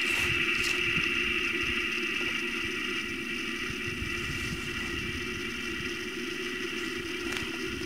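A steady, eerie drone coming from the sky, of unknown source, held as a low hum with a higher tone over it and fading slightly toward the end.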